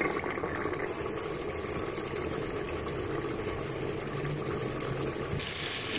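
Mutton curry cooking in an aluminium pot on the stove: a steady low rumble.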